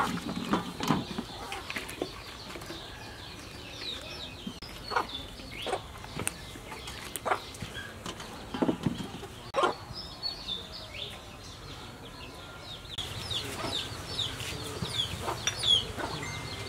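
Chickens clucking in the background, with scattered short knocks and rustles as vegetables are laid into a metal cooking pot. From about three-quarters of the way through, a run of quick, high, falling chirps joins in.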